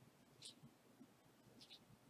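A few faint clicks from a tiny MeiLong 3x3 keychain puzzle cube being turned by hand during a timed solve, about half a second in and again around a second and a half in.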